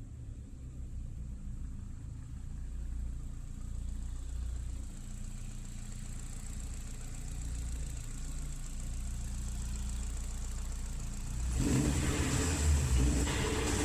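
Audi A3's 1.8-litre 20-valve turbocharged four-cylinder engine idling with a steady low rumble, then revved up about eleven seconds in, the sound turning suddenly louder and fuller in uneven surges.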